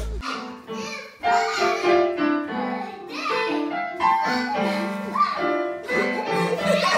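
Closing music: a bass-heavy track cuts off right at the start, and a tune of notes moving up and down in steps follows, with no bass or beat.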